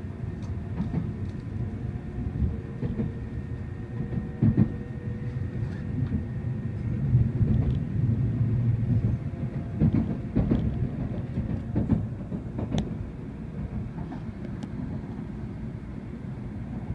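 Running noise inside a Hikari Shinkansen passenger car: a steady low rumble with a few short knocks and clicks, swelling a little in the middle of the stretch and easing back near the end.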